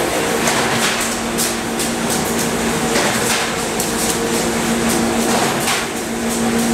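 Steady machine hum with a low tone, broken every second or two by sharp, irregular cracks as a handheld tool works the steel wire mesh of a 3D insulated panel, throwing sparks.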